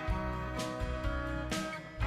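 Country-style guitar music with a steady beat: the channel's original theme song.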